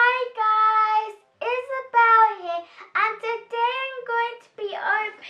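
A young girl's high voice singing in a sing-song way, in several short phrases with long held notes.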